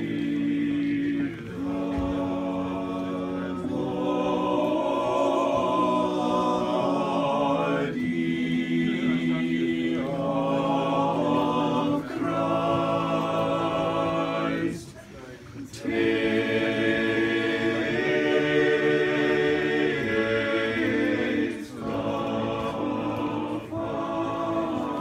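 Octet of voices singing a cappella in sustained chords, phrase by phrase, with a brief break between phrases about fifteen seconds in.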